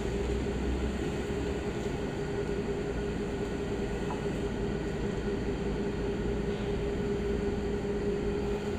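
Steady mechanical hum with a low drone and a steady mid-pitched tone, and a faint tap about four seconds in.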